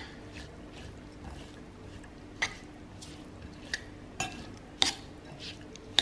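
A metal spoon stirring a quinoa, chicken and vegetable salad in a bowl, with about five sharp clinks of spoon against bowl in the second half.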